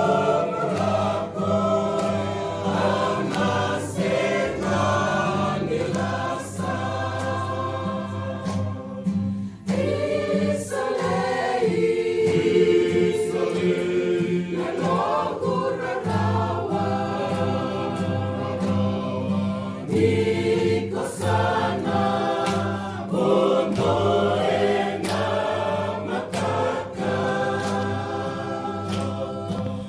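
A choir of several voices singing in harmony over a steady low accompaniment, in a hymn-like style.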